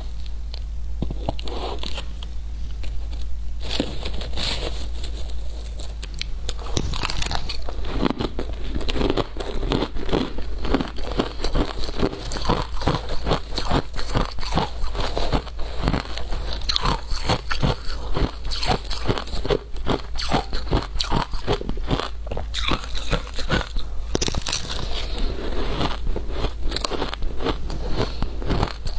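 Shaved ice being bitten and chewed: a dense, continuous run of crisp crunches, with a steady low hum underneath.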